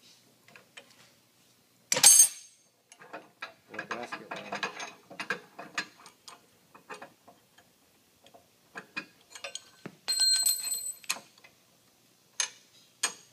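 Steel bearing-puller parts being handled and taken apart: scattered metal clicks and clatter, a sharp clank about two seconds in, a ringing metallic clang about ten seconds in, and two more clicks near the end.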